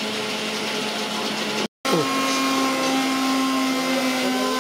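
Steady machine hum with a whine of several steady tones. It cuts out for a moment about a second and a half in, then resumes slightly higher in pitch.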